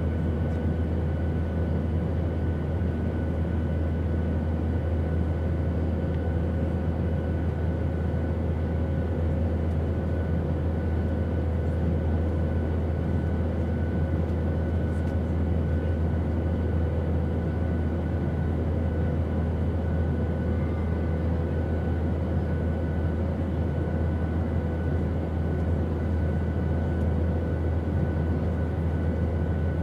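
Airplane noise: a steady, unbroken drone with a deep low rumble and a few faint steady tones above it.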